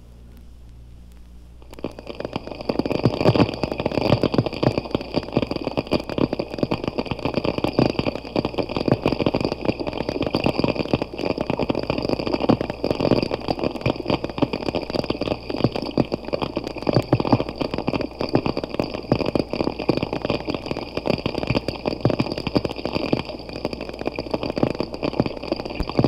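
Underwater recording of thousands of snapping shrimp snapping their claws, some close and some far: a dense, continuous crackle of clicks, the underwater 'static' of a shrimp chorus, starting about two seconds in. A steady high whine runs underneath.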